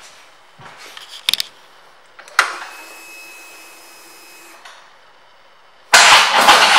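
Switch clicks, then a faint steady hum for about two seconds as the ignition of a 2016 Harley-Davidson Road Glide Special is switched on. Near the end the starter cranks and the Twin Cam 103 V-twin fires up loudly.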